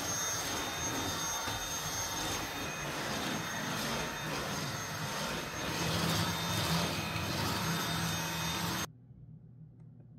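Cordless stick vacuum cleaner running as it is pushed over a hard floor: a steady rushing hiss with a thin high whine. It cuts off abruptly about nine seconds in.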